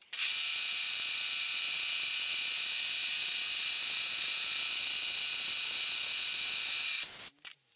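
Milling machine spindle running at speed with a drill chucked, a steady high whine over a hiss. It stops suddenly about seven seconds in.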